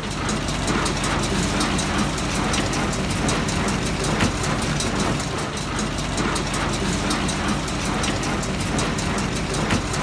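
Tractor running a Massey Ferguson 120 square baler off its PTO shaft: a steady low engine drone with rapid, continuous metallic clattering from the baler's moving parts.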